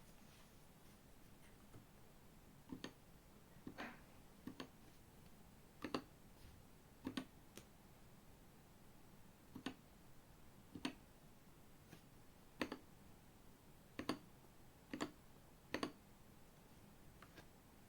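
Individual keystrokes on a 75% mechanical keyboard with Gateron G Pro Milky Yellow linear switches and XDA keycaps: short, sharp clicks pressed one at a time, roughly once a second and unevenly spaced, some coming as quick pairs.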